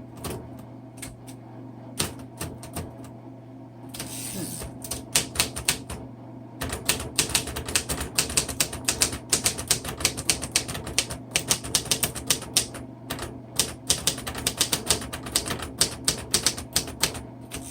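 1952 Royal Quiet DeLuxe manual portable typewriter being typed on: a few scattered key strikes, a short rush of noise about four seconds in, then a fast, steady run of typebar strikes from about seven seconds on. A steady low hum sits underneath.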